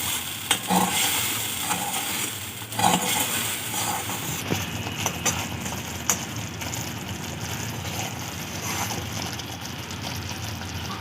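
Poppy seed paste sizzling in hot oil in a pan while it is stirred and sautéed, with a few sharp clicks of the stirring utensil against the pan.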